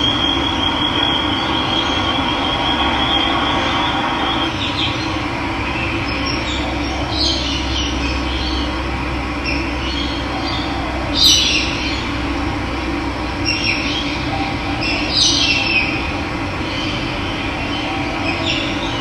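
Running water flowing steadily, with wild birds calling over it: a high trill at the start, then short chirps several times.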